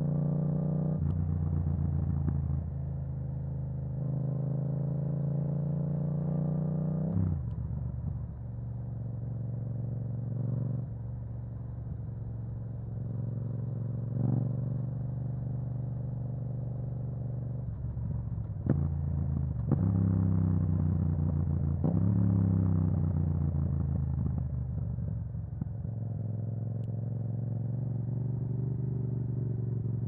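Yamaha MT-07's parallel-twin engine running through an Akrapovič exhaust while ridden. The engine note rises and falls with several gear changes, with a few short sharp cracks in between.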